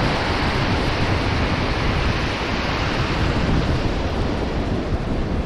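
Steady wash of shallow breaking surf, with wind rumbling on the microphone.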